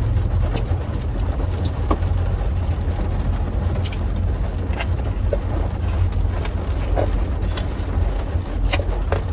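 Steady low rumble of a car's engine idling, heard from inside the cabin, with a few faint clicks scattered over it.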